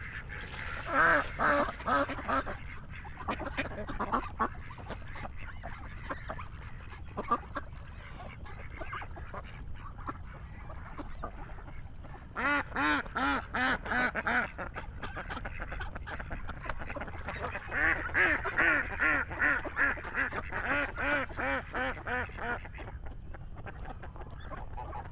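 Ducks quacking in quick runs of calls: a short run about a second in, another in the middle and a longer run near the end.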